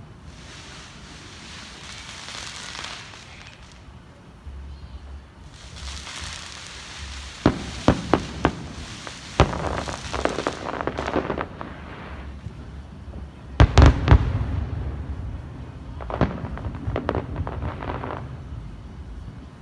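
Fireworks going off: stretches of hissing, a quick run of sharp bangs, a loudest cluster of booms past the middle, and crackling near the end.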